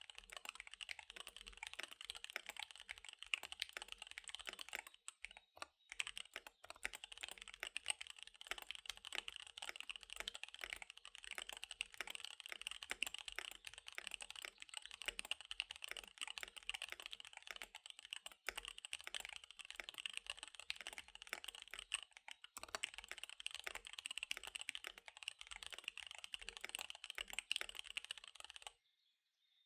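Fast typing on a KBD75 V3 mechanical keyboard with SP-Star Dark Magic Girl tactile switches and DSA keycaps: a dense, rapid stream of keystroke clicks with a couple of brief pauses. The typing stops shortly before the end.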